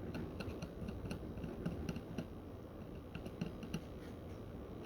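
Faint, irregular light clicking and tapping as a soldering iron tip works pin by pin across the connector legs of a phone screen's flex cable, several small ticks a second.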